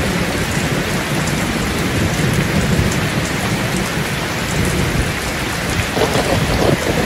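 Heavy rain pouring down in a loud, steady hiss, mixed with muddy runoff water rushing along a channel.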